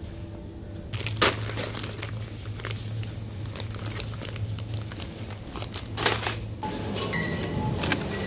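Plastic instant-noodle packets crinkling as they are handled in a box, with two louder rustles about a second in and near six seconds. A steady low hum runs underneath.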